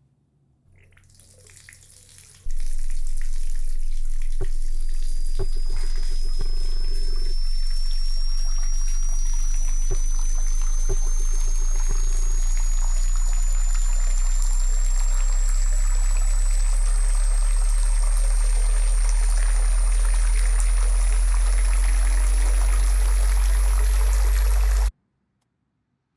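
Tap water running into a bathroom sink, layered with a loud, deep drone that grows stronger and a thin high tone that slowly rises in pitch. There are a few sharp clicks in the first half, and everything cuts off abruptly near the end.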